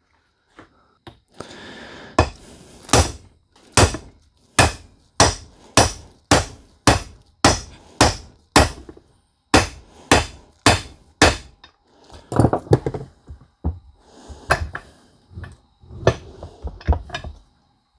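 Steel hammer blows on a truck driveshaft's U-joint yoke, driving the worn universal joint's bearing cup out: about fifteen sharp, ringing strikes at roughly two a second. After about eleven seconds they give way to lighter, irregular metal knocks and clinks.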